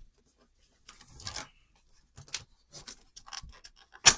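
Scattered rustles and small clicks of hands handling a sealed trading-card box and starting to open it, with a sharp, loud tear of the packaging near the end.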